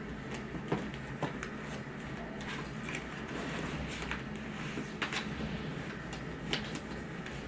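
Scattered light clicks and knocks over a steady low hum.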